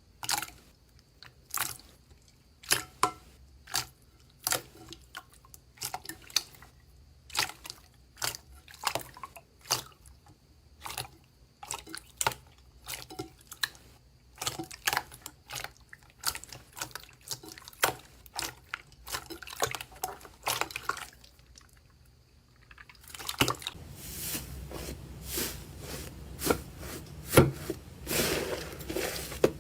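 Slime being handled: sharp, wet pops and clicks, irregular, about one or two a second. After a brief pause about three-quarters of the way in, a denser, continuous crackling squish.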